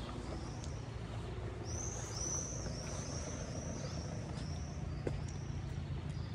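A small songbird sings a run of about eight high, arching notes, over a low steady rumble.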